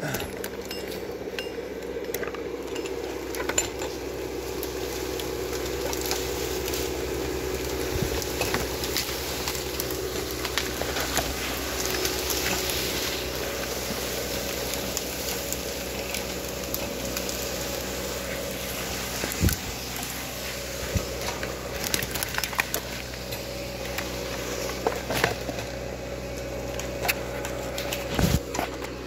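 Two-stroke chainsaw idling steadily, with scattered knocks and crackles of brush as it is carried through the undergrowth.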